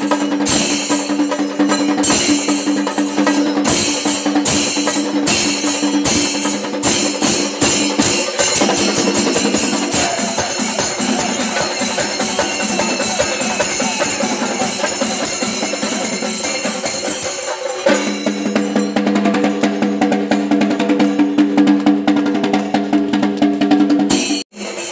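Chenda melam: a group of Kerala chenda drums beaten with sticks in a fast, dense rhythm.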